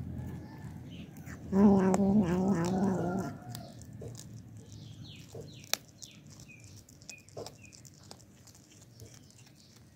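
Kitten growling possessively over the mouse it is eating: one loud, wavering growl about a second and a half in, lasting under two seconds. A few sharp clicks from its chewing follow.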